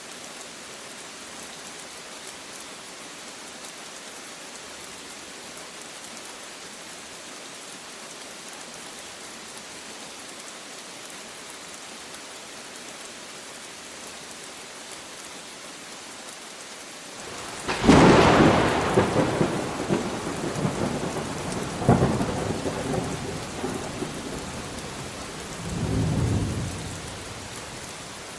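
Steady rain falling, then a sudden crack of thunder about two-thirds of the way in that rolls on as rumbling with two more swells before fading back under the rain.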